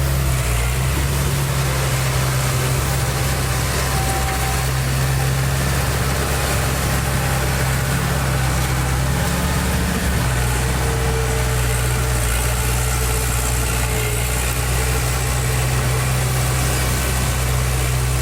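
Heavy diesel engine of construction machinery running steadily at low speed, a deep, even hum.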